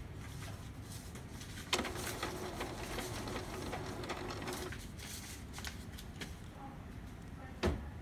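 Epson M200 inkjet printer running a print head cleaning cycle to clear clogged nozzles. Its mechanism starts with a click and runs with a steady hum for about three seconds. A sharp click comes near the end.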